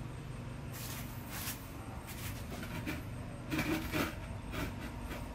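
Handling noise as a hand picks a small foam boat up out of the water: a string of short rustles and knocks, loudest just before the boat is lifted clear, over a steady low background rumble.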